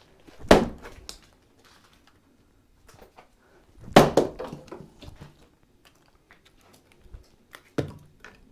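Splitting axe striking a wooden round on a chopping block, twice hard, about half a second in and about four seconds in, the wood cracking apart. A lighter knock near the end.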